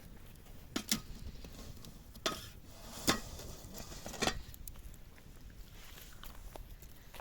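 A handful of short, sharp clicks and knocks of cooking utensils against dishes, a close pair about a second in and then single knocks every second or so, fading out in the last couple of seconds.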